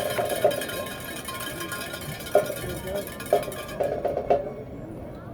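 Marching band playing, with held high chords and short percussion hits every second or so.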